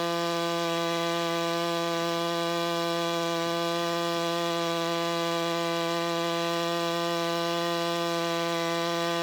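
Simpson ALH 3228 gas pressure washer with a Cat commercial pump running at full throttle, a constant pitched drone.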